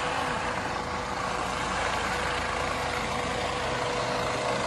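Police helicopter hovering low overhead: steady engine and rotor noise with one constant tone running through it.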